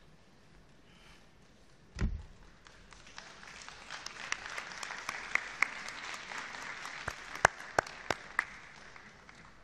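A single dull thump about two seconds in, then scattered applause from the delegates that builds and fades away, with a few loud single claps standing out.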